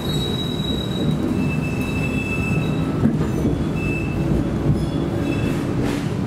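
TriMet MAX light-rail car heard from inside while running on street track: a steady low rumble of wheels and running gear, with short high wheel squeals a few times as it takes the curve.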